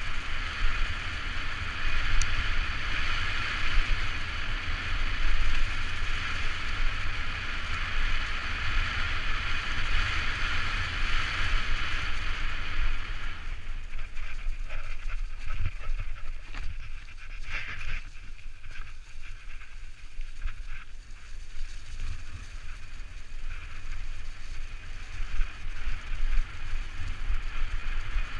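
Mountain bike descending a leaf-covered forest trail, heard from a helmet-mounted camera: wind rumbling on the microphone under the hiss of tyres rolling over leaves and dirt, with rattles from the bike. The hiss is strong for the first half and eases about halfway through, leaving scattered clicks and rattles.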